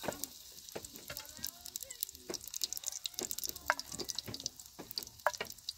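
Pieces of meat frying in hot oil in a pan, sizzling with a steady high crackle and sharp pops, alongside clicks of a knife cutting on a plate.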